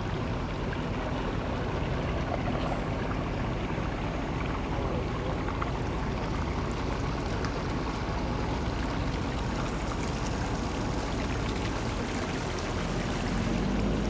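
A boat engine idling as a Striper cabin boat creeps in at slow speed, over a steady wash of water. The engine grows louder near the end as the boat comes close.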